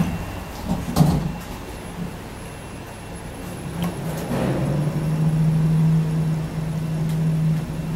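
Kone elevator car with a door clunk about a second in, then a steady low hum from about halfway as the car starts to travel.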